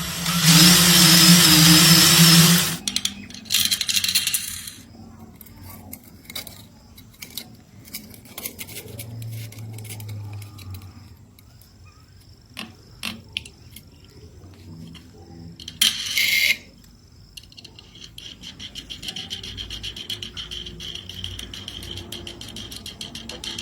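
Electric drill used to sharpen a knife: a loud stretch of grinding with a steady whine over the first couple of seconds, and shorter bursts of grinding around four and sixteen seconds in. Clicks and clatter fall between the bursts, and a steadier high whine with fine ticking runs through the last several seconds.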